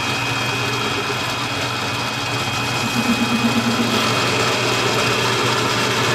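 Benchtop mini lathe running with a steady motor whine and hum while the tool takes a light cut on aluminium stock, with a brief warbling buzz about three seconds in.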